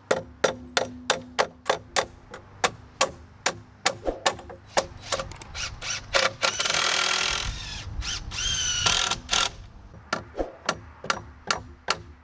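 Hammer driving nails into metal joist hangers on a wooden deck frame: quick, even strikes about three a second. Partway through, the hammering pauses for a whoosh and a short chime, then resumes.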